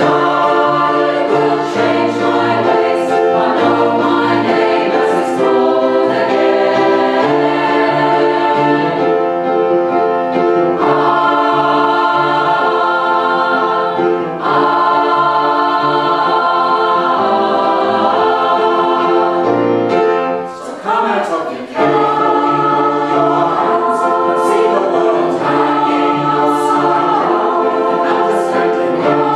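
Mixed choir of women and men singing in harmony in long held chords, accompanied by an upright piano. About twenty seconds in the sound dips briefly with a sliding pitch before the full chords return.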